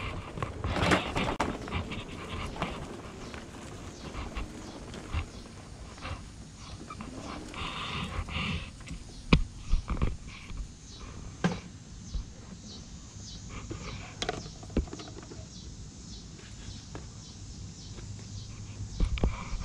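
Close handling and rummaging noises: scattered sharp clicks and knocks with short bursts of rustling.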